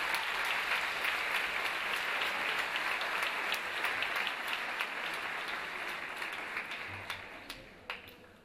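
Audience applauding, fading away over the last couple of seconds.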